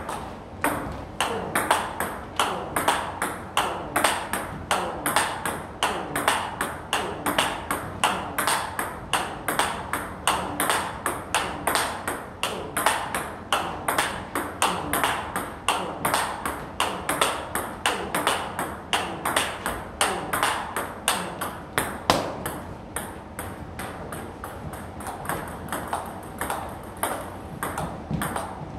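Table tennis rally: the celluloid-type ball clicking off the bats, one faced with Tibhar Hybrid MK rubber, and off the table in a steady, quick rhythm of about three to four hits a second, with one sharper, louder hit about two-thirds of the way through.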